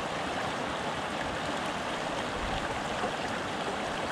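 Shallow mountain creek rushing over rocks, a steady, even sound of running water.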